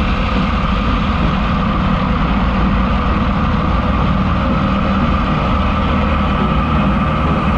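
Single-engine light airplane's piston engine and propeller at full power during the takeoff roll, a loud, steady drone.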